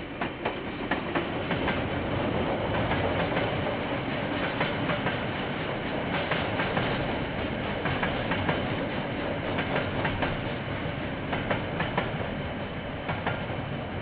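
Freight train of container wagons rolling past, a steady rumble with irregular clicks and knocks from the wheels over the rail joints, heard through a security camera's microphone.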